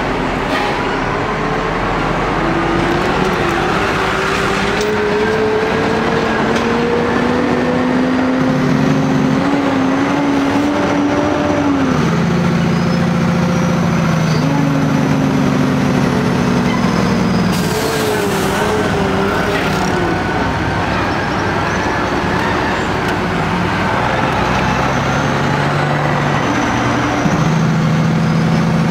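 Kenworth truck's diesel engine running under way, heard from inside the cab over road and cab noise. The engine note drops and rises in steps a few times.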